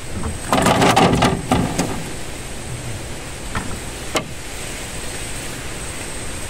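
Knocks and clatter of fishing gear being handled against a wooden boat: a quick run of several knocks in the first two seconds, then two single knocks near the middle, over a steady hiss.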